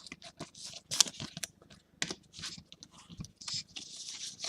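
Topps Champions League Showcase trading cards being handled: a quick, irregular run of short scrapes and ticks as cards slide over one another, with crinkling and tearing of pack wrappers.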